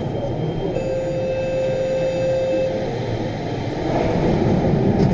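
VAL 208 automated rubber-tyred metro train standing in the tunnel: a steady hum and rumble from its equipment. A clear steady tone sounds for about two seconds, and the sound swells louder near the end.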